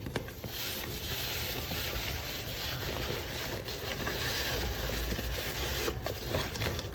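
Paper rubbing and rustling as handmade paper packaging is handled and opened, with a few light taps.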